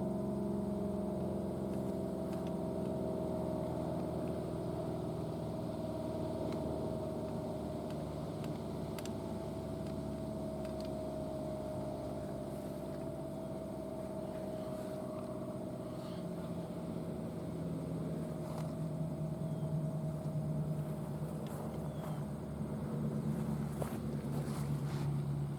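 ACA Allertor 125 tornado siren winding down after a full-alert test. Its reverse-wired, non-rotating 9/12-port rotor coasts, and its chord of tones slowly falls in pitch. A low hum grows a little louder near the end.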